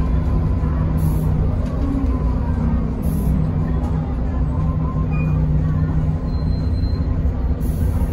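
Mercedes-Benz O405NH city bus heard from inside the passenger cabin while under way: a steady engine drone with road and body noise.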